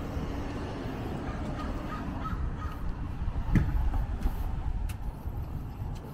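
Wind rumbling on the microphone, with a few short bird calls and a single sharp knock about three and a half seconds in.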